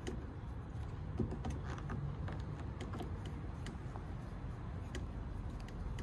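Scattered small clicks and taps of a T25 Torx key working a tight screw loose on a car's door handle, over a steady low rumble.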